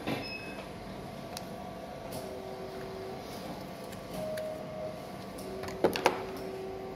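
Lab items being handled on a table: a micropipette and a plastic reagent bottle, with two sharp knocks close together about six seconds in as the bottle is picked up. A few faint held tones sit in the background.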